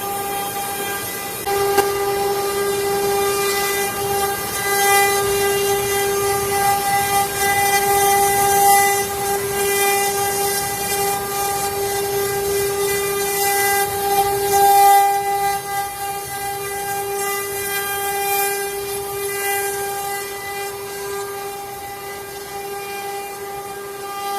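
CNC router spindle running at a steady high-pitched whine, with a rough hiss from the cutting bit that swells and fades as it carves.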